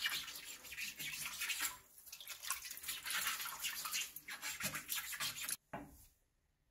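Quick back-and-forth scrubbing of a wet chrome faucet with a scrub pad and toothpaste, breaking off briefly twice and stopping shortly before the end.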